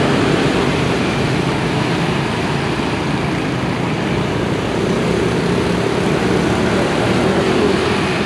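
Steady road traffic noise from a busy main road alongside: a continuous wash of passing cars and motorbikes.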